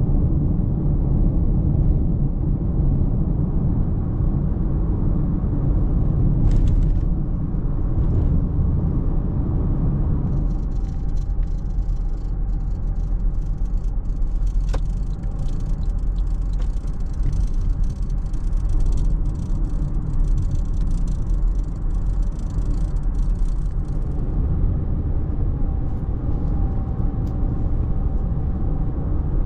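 Car driving: a steady, loud low rumble of engine and road noise, with light rattling through the middle stretch.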